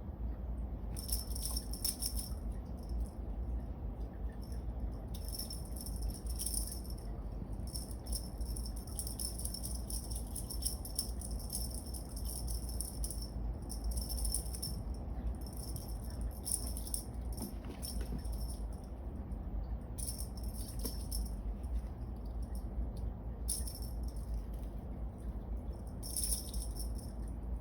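Cat teaser wand rattling as it is shaken in repeated bursts, each from about a second to several seconds long, with short pauses between.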